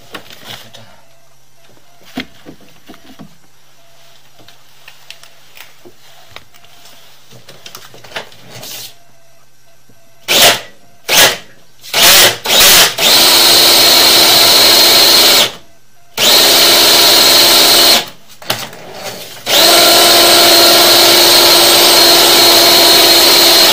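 Electric drain-cleaning machine spinning a chain-flail head on its cable inside a drain pipe to scour out a blockage. It starts about ten seconds in with a few short blips of the motor, then runs in three long spells of a steady whine, stopping briefly between them.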